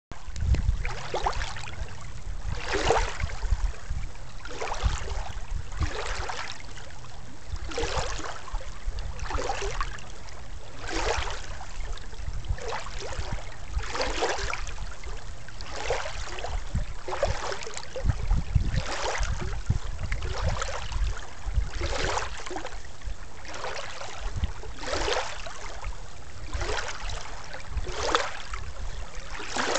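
Shallow water lapping at the shoreline, small wavelets washing in with a rush about every second and a half, over a steady low rumble of wind on the microphone.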